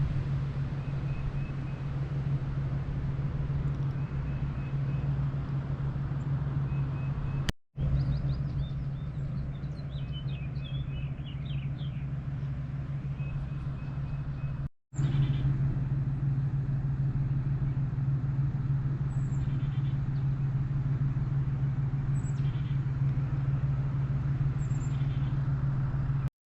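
An engine running steadily with a low, even hum, briefly cut off twice, with birds chirping now and then.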